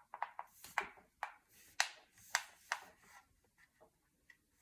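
A ring light and tripod being handled: a quick run of sharp clicks and taps that dies away about three seconds in.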